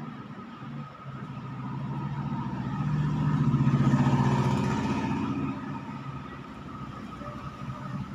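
A motor vehicle's engine passing by, swelling over a few seconds and then fading away, over a steady low engine hum.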